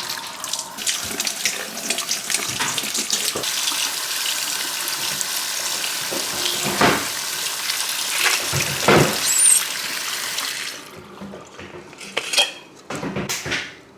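Kitchen tap running steadily into a sink as tomatoes are rinsed. The water shuts off about three quarters of the way through, leaving a few light knocks and clinks.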